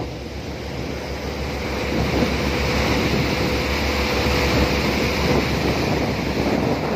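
A boat under way: water rushing in its churning wake and wind buffeting the microphone over a steady low engine rumble.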